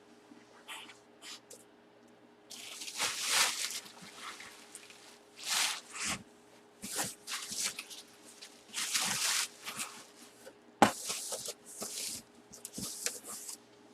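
Rustling and crinkling of packaging being handled, in a dozen short bursts, with one sharp knock about eleven seconds in.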